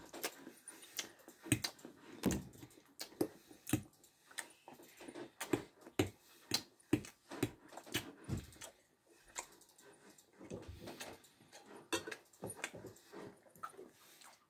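Close-miked mouth sounds of a man eating a bun: chewing and wet lip smacks, a dense, irregular run of short clicks that thins out briefly a little after the middle.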